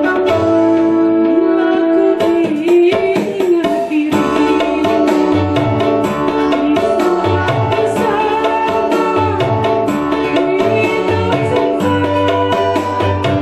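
A woman singing through a microphone over backing music with a hand-drum rhythm and plucked strings.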